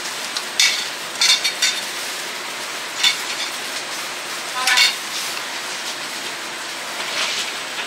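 Kitchen sounds: a steady sizzling hiss under short clinks and clatters of utensils and dishes, about five of them in the first five seconds.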